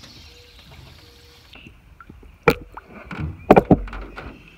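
Handling noise from a largemouth bass gripped by the lip at the side of a boat: a sharp knock about halfway in, then a quick cluster of louder knocks and thuds about a second later.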